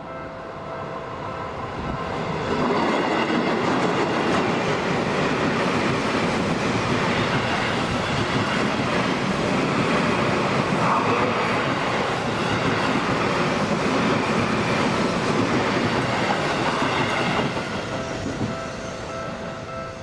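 Electric commuter train passing over a level crossing: a loud, steady run of wheel and motor noise that builds about two seconds in and dies away about three seconds before the end. The crossing's electronic warning bell rings as a set of steady tones, drowned by the train while it passes and heard again as it clears.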